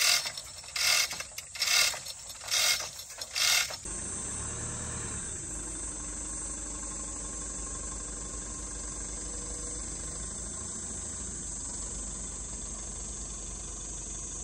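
Hand-operated chain hoists clattering in about four short bursts, a little under a second apart, as their chains are worked. After about four seconds, a truck engine runs low and steady as the flatbed truck drives slowly out from under the suspended log.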